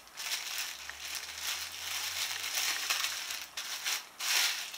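Thin clear plastic bag crinkling and rustling as it is handled while a piece of modelling dough is put away in it, with a louder crinkle about four seconds in.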